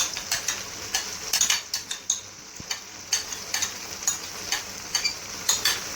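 Chicken karahi sizzling in the pan over a high flame with yogurt just added, while a spoon stirs it, clinking and scraping against the metal karahi every half second or so.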